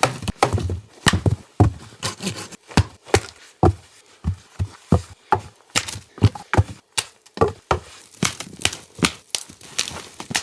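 Wood being chopped: a quick, irregular run of sharp knocks, several strikes a second.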